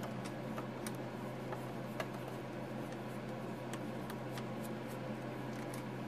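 Screwdriver unscrewing screws from a 3D-printed plastic mount: faint, irregular small clicks and ticks over a steady low hum.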